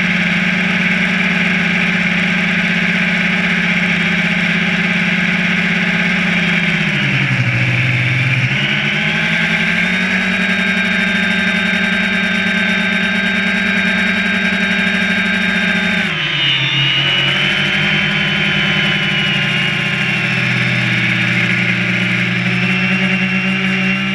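Quadcopter drone's electric motors and propellers whining steadily, heard close up from the drone's own camera. The pitch dips twice as the motors slow, about seven seconds in and again suddenly about sixteen seconds in, then rises back.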